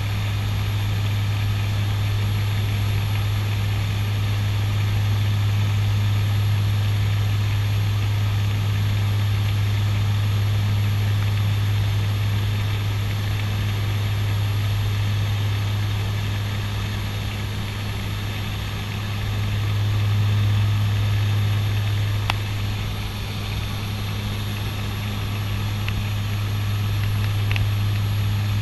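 Steady propeller drone of a CASA NC-212-200 Aviocar's twin turboprop engines heard inside the cockpit in level cruise, a deep even hum over airflow noise that swells slightly about two-thirds of the way through. A single brief click sounds about 22 seconds in.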